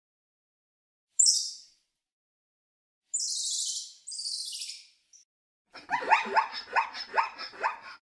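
Squirrel monkey calling: a few short, high-pitched, hissy squeaks, then from about six seconds in a rapid run of falling chirps, about four a second.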